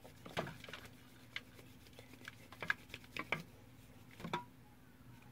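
Faint, scattered small sticky clicks and taps of wet homemade flour-and-salt dough being worked and scraped off the hands into a bowl.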